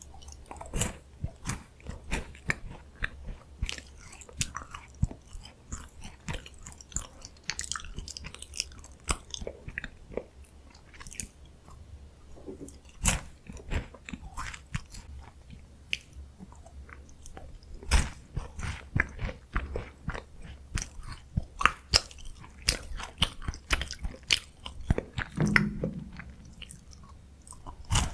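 Close-miked chewing and biting of crunchy chocolate-covered biscuit snacks, a steady run of irregular crisp crunches and small mouth clicks.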